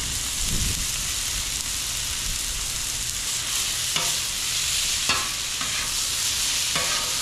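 Sliced New York strip steak and onions sizzling steadily on a hot Blackstone flat-top griddle, with a few short clicks about four, five and near seven seconds in.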